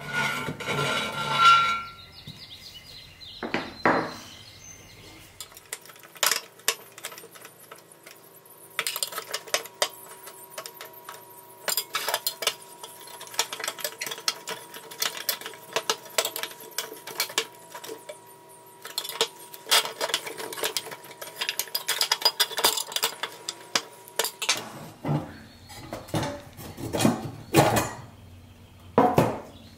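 Thin pressed sheet steel of a 1940s Buddy L toy dump truck clinking and rattling as its rusty body parts are handled and taken apart on a bench. There are many light metallic taps, sparse for a few seconds near the start, then coming in dense clusters.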